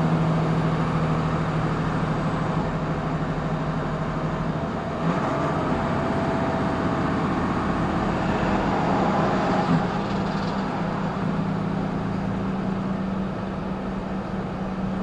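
Inside a semi-truck cab at highway speed: steady diesel engine hum with road and tyre noise. The hum steps up slightly in pitch about five seconds in.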